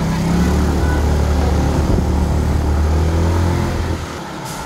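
Motorbike engine running steadily at a low, even pitch under the rider, dropping away about four seconds in as the throttle eases.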